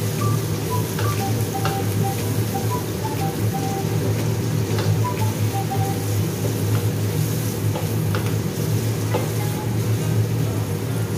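Ginger and scallion stems sizzling in hot oil in a wok alongside a milkfish fillet, stirred with a wooden spatula that gives occasional short taps and scrapes against the pan.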